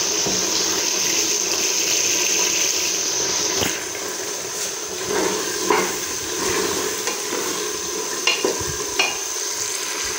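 Boiled black chickpeas frying in ghee with spices, sizzling steadily, while a spoon stirs them in the pot, with a few sharp clinks of the spoon against the pot in the second half.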